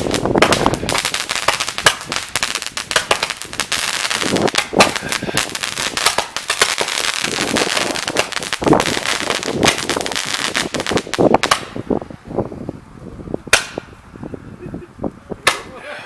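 Consumer fireworks crackling: a dense, rapid run of sharp cracks and pops for about eleven seconds that stops abruptly. Two single loud bangs follow near the end.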